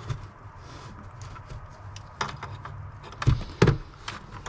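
Scattered clicks and knocks of car trunk trim being pulled and worked loose by hand, with two louder thumps close together a little past three seconds in.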